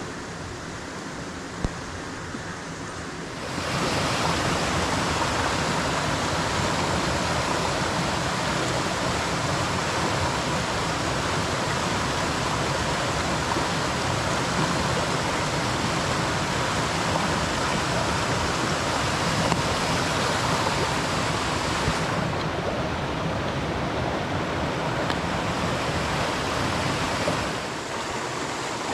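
Mountain stream rushing, a steady wash of water noise that grows louder about three and a half seconds in and drops back near the end.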